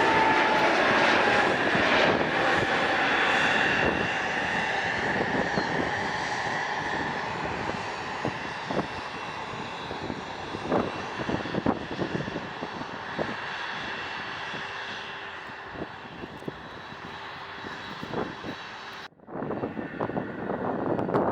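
Airplane engines passing, loud at first with a whine that slowly falls in pitch, then fading away over about fifteen seconds. Near the end the sound cuts off abruptly and gives way to wind on the microphone.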